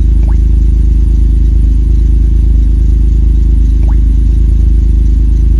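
Car engine idling, heard from inside the cabin as a loud, steady low hum. Three faint short rising chirps sound over it, spread through the stretch.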